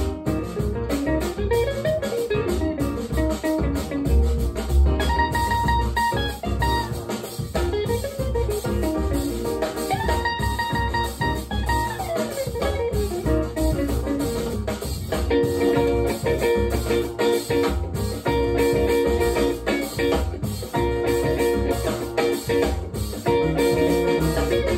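Guitar and drum music played through a pair of Celef LS8 two-way stand-mount loudspeakers, heard through a microphone in the listening room. The notes slide up and down over a steady beat.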